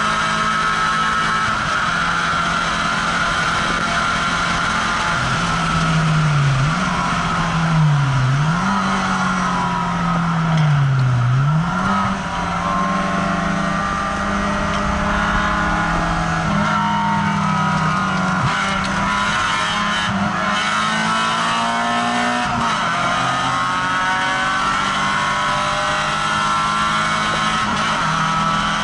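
Small car's engine heard from inside the cabin, driven hard. Between about five and twelve seconds the revs fall while braking and jump back up three times, as with downshifts. After that the engine holds high revs steadily.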